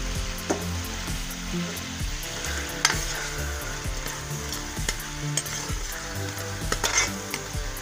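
Chopped onions sizzling as they start to fry in hot oil in a steel pan. A metal spatula scrapes and clinks against the pan now and then as they are stirred, most sharply about three seconds in and near the end.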